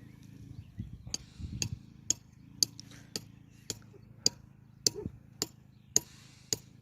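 Sharp, regular taps or clicks, about two a second, over a low steady hum.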